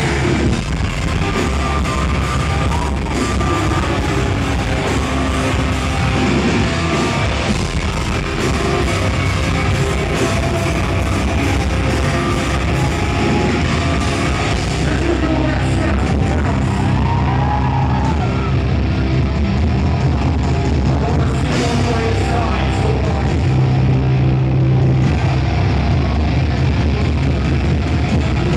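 A metalcore band playing live, loud and unbroken: distorted electric guitars, bass and drums with screamed vocals, heard from within the crowd.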